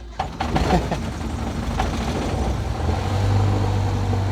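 Cessna 172's piston engine running just after a cold start, a steady low drone heard inside the cockpit that gets louder about three seconds in.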